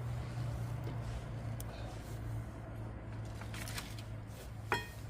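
A steel brake caliper bracket being handled and set in place on the rear hub: light rustling and scraping, then one sharp metallic clink near the end, over a steady low hum.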